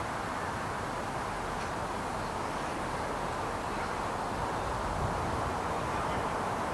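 Steady outdoor background noise with no clear single source, broken by a couple of faint knocks.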